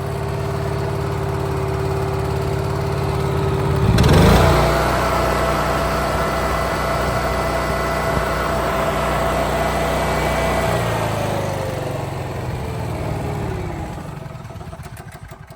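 Wacker Neuson GP6600 portable generator, Honda-powered, running with a steady hum. About four seconds in it revs up sharply to a higher steady speed. Near the end its pitch winds down and the sound fades away.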